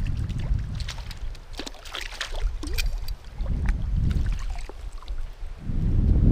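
A hooked trout splashing at the river surface while a landing net is dipped into the water to scoop it, with many short sharp splashes and drips. Wind buffets the microphone in a low rumble at the start and again near the end.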